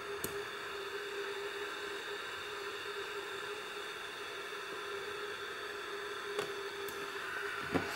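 Steady hiss and hum with a few faint sharp clicks, one about a quarter second in and three more near the end, as the probes of a handheld spot welder press and fire on a nickel strip across the poles of lithium cells.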